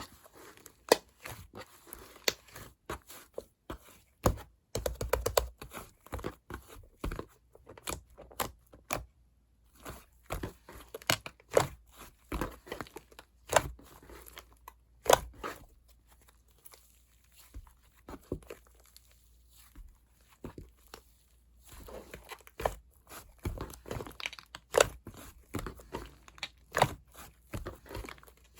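Fluffy slime being squished, stretched and mixed by hand, with irregular sticky crackles, pops and tearing sounds.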